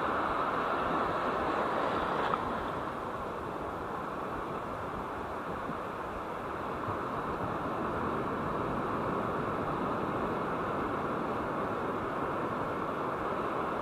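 Ocean surf washing in the shallows, a steady rushing noise, with one brief click about two seconds in.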